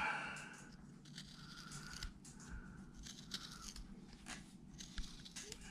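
A small hobby-knife blade (a No. 11) cutting and scraping into carved wood, giving faint, irregular little clicks and scrapes.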